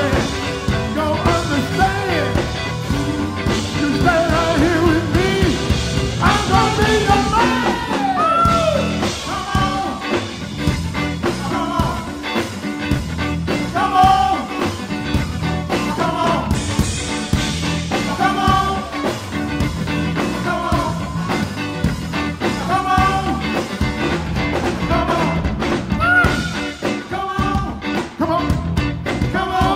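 Live blues band playing, with electric guitars, bass guitar, drum kit and keyboards, and singing over the top.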